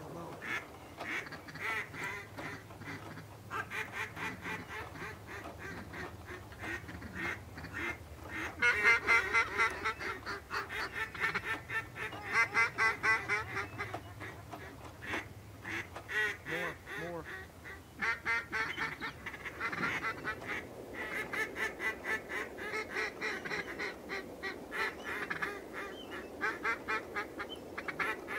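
Ducks and geese calling: long runs of quacks and honks that go on almost without a break, loudest about nine to fourteen seconds in.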